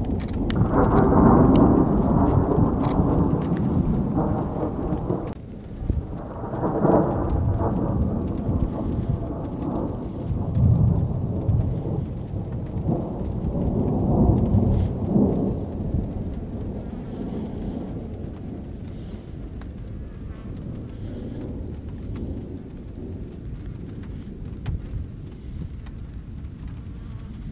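Rolling anvil thunder in several long rumbles, loudest in the first few seconds and swelling again a few more times before dying down to a weaker rumble in the second half; a fresh rumble begins right at the end.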